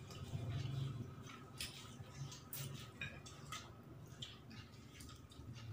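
Wet chewing and lip-smacking of someone eating fried pangasius (patin) fish by hand, with scattered short clicks, over a low steady hum.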